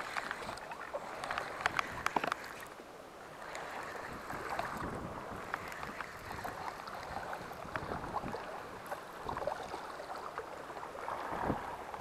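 Wind and sea water at the shore or boat side: a steady rushing hiss with scattered sharp clicks and knocks, most of them in the first couple of seconds.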